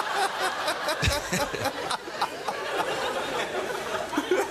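Studio audience laughing and chuckling.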